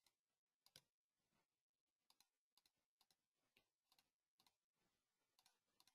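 Near silence, with very faint computer mouse clicks, often in quick pairs, as listing checkboxes are ticked one after another.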